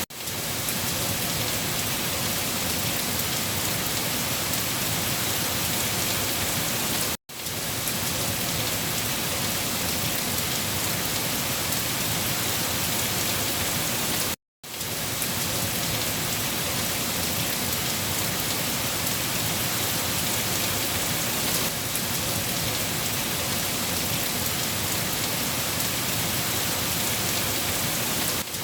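Steady rain falling, a continuous even hiss that cuts out completely for a split second twice, about seven and fourteen seconds in.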